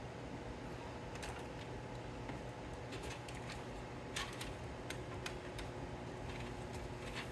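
Scattered light clicks and taps of hands handling PC parts and cables, over a steady low hum.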